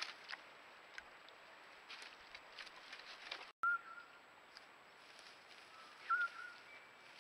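Faint rustling and light crackles in grass, a brief dropout, then two short, thin whistled calls, one just after the dropout and one about six seconds in.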